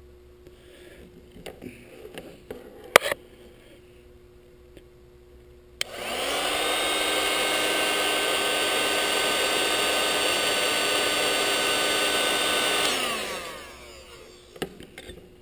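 A sharp click about three seconds in, then an electric heat gun switched on: its fan motor whirs up to speed, blows steadily for about seven seconds to shrink heat shrink tubing over a soldered wire splice, and winds down after it is switched off.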